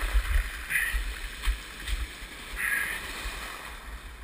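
Ocean surf washing and foaming over the shore, with wind buffeting the microphone in uneven gusts.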